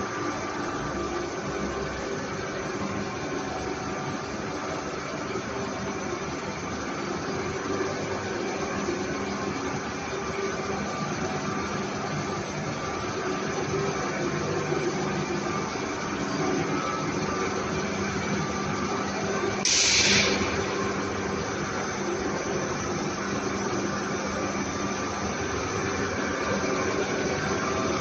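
Industrial machinery of a refrigerator recycling line running steadily, a constant hum over a noisy din. A brief loud hiss cuts in about twenty seconds in.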